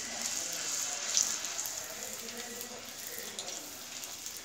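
Small semolina (rava) pani puris deep-frying in hot oil: a steady sizzle with fine crackling, and a louder crackle about a second in.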